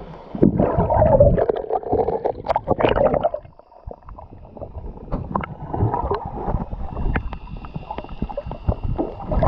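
Water rushing and sloshing around a GoPro camera held underwater, dull and mostly low, with many scattered clicks and crackles. It is loudest in the first few seconds and dips briefly a little before halfway.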